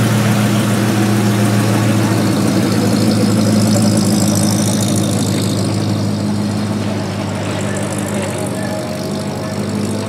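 1930 Auburn roadster's engine running at a steady low speed, an even low hum that gets slightly quieter over the second half.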